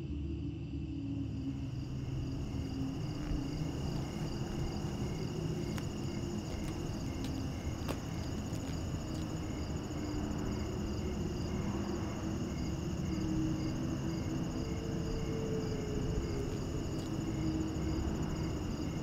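Night ambience of crickets chirping steadily in a continuous pulsing trill, over a low steady rumble.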